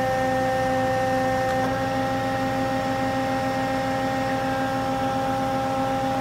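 Hyd-Mech V18A vertical band saw running, a steady machine whine made of several held tones that steps slightly higher about one and a half seconds in, as its work table slides.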